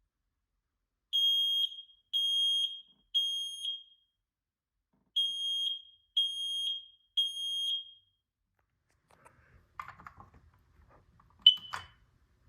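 Smoke alarm sounding a test alarm: two groups of three loud, high beeps, the temporal-three pattern that signals smoke. Near the end come a few handling clicks and one short chirp.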